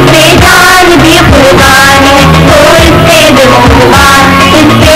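Loud song: a singing voice carrying a melody over instrumental backing with a beat about once a second.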